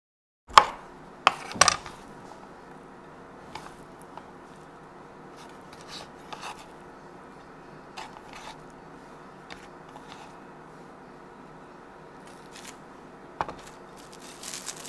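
A chef's knife dicing Chinese sausage on a wooden cutting board: a few sharp knocks about half a second in. Then scattered soft taps and scrapes as the food is pushed around on the board, over a faint steady hum.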